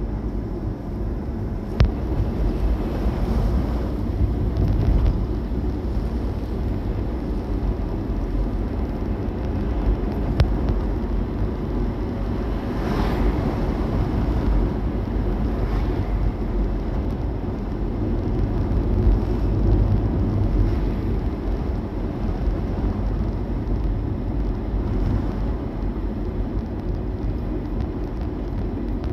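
Steady low rumble of a car driving, with a couple of faint clicks and a brief swell of noise about halfway through.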